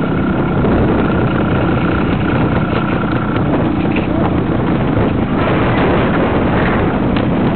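Trials motorcycle engine running steadily at low speed close to a helmet-mounted microphone, with wind buffeting the microphone.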